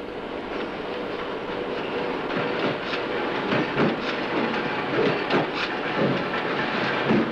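Press shop noise fading in and growing louder: a steady machine din with irregular heavy clanks of mechanical power presses stamping, coming thicker from about two and a half seconds in.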